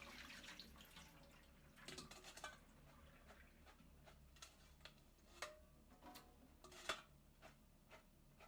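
Faint, scattered kitchen clicks and taps, irregular rather than the quick steady chop of shredding, with a slightly sharper knock about seven seconds in.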